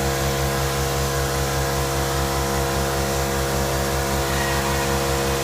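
3+1-axis CNC router running: a steady machine hum made of several held tones over a continuous hiss.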